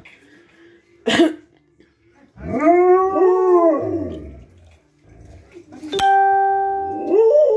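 Alaskan Malamute howling in welcome: a short yelp about a second in, then a long howl that rises and falls in pitch, and another rising howl near the end. About six seconds in a click sets off a steady electronic chime under the last howl.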